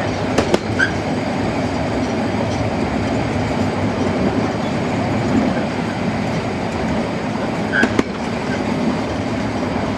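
Harz narrow-gauge train rolling along the track, heard from on board: a steady rumble of wheels on rail, with a few sharp clicks in the first second and another about eight seconds in.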